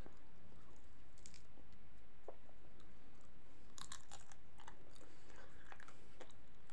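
A person biting and chewing lahmacun (thin Turkish flatbread), with scattered short crunchy clicks and a cluster of sharper ones about four seconds in.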